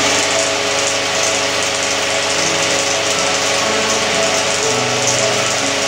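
Steady mechanical whir of a running 16 mm film projector and Nipkow scanning-disk telecine. Faint notes change pitch every second or so.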